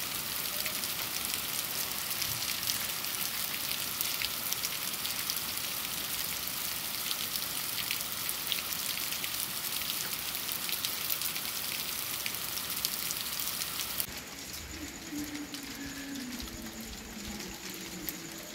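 Rain falling steadily on a wet cobbled street: a dense hiss full of individual drop impacts. About fourteen seconds in it cuts suddenly to lighter, quieter rain with a faint low wavering sound over it.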